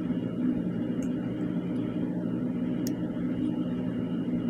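Steady low mechanical hum with a faint high whine, and a couple of faint ticks.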